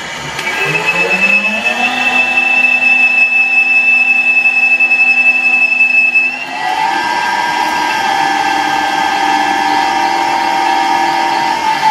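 Colchester Bantam lathe cutting with a carbide tool, the tool chattering with a steady, high squealing whistle over a lower hum. About six and a half seconds in, the spindle speed is turned up and the noise shifts to a different pitch. The squeal is the sign of the carbide tool not being pushed hard enough on a small lathe with only a 1 horsepower motor.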